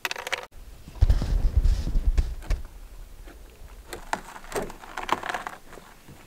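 Handling noise on the camera's microphone: a second or two of loud low rumbling thumps, then scattered rustles and light clicks.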